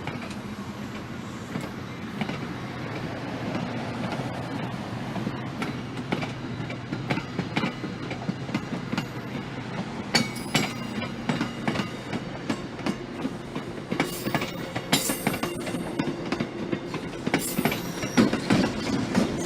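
A train rolling along the rails with a steady rumble. Its wheels click and knock over the rail joints, more often from about halfway. There are short high-pitched wheel squeals in the last few seconds.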